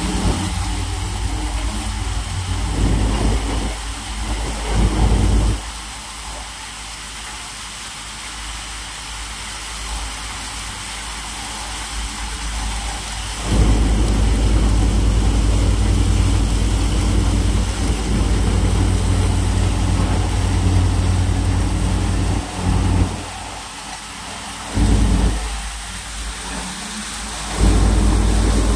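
Double-drum multicrop thresher running steadily while threshing dry crop stalks, a loud mechanical hiss with a heavy low rumble that drops away for several seconds at a time.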